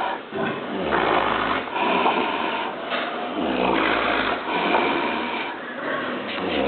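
A sow snoring: a rasping, rattling snore on every breath, with deeper, heavier breaths about a second in and again about four seconds in.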